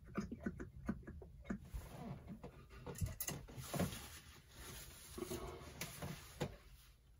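Engine oil glugging from a bottle into a funnel on the filler, mixed with irregular clicks and knocks of handling. Further on comes the rustle of a paper towel as hands wipe around the filler.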